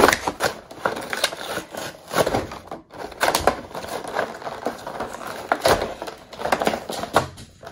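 Plastic and cardboard toy packaging being torn open and crinkled by hand: a rapid, irregular run of crackles and snaps.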